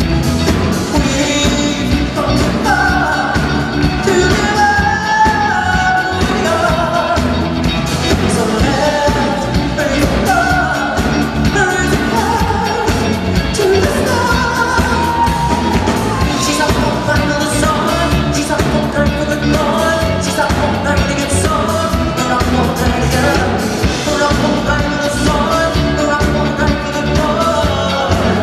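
Live pop performance: a male singer sings a melody over a full band with a steady driving beat, heard in a large hall.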